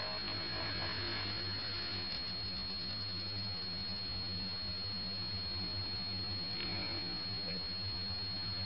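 Steady low hum with a thin, constant high-pitched whine over an even background hiss, with no distinct events.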